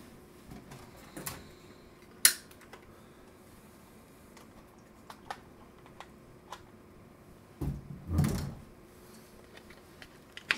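Scattered clicks and light knocks of objects being handled while someone fetches a multimeter from around the bench: one sharp click about two seconds in, and a louder cluster of knocks and rustling about three-quarters of the way through.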